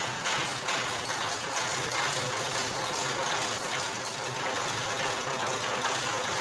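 Motor-driven sugarcane juice press running: a steady mechanical whirr and rattle from its motor and roller gears.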